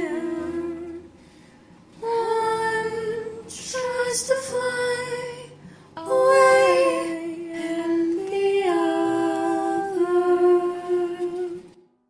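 Female voice humming a wordless melody in long held notes over music, the closing bars of a song. There is a short lull about a second in, and everything stops near the end.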